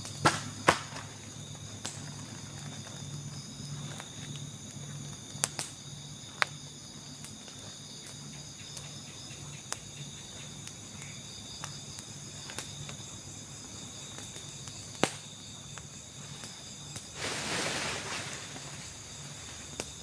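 Night forest ambience: a steady chorus of insects with a low, even pulsing hum beneath it. Several sharp clicks or snaps cut through, two right at the start and a few scattered later, and a short rustling noise comes near the end.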